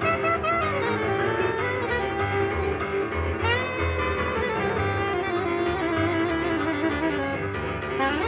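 Improvised jazz duo of saxophone and piano: the saxophone plays wavering, sliding lines over the piano.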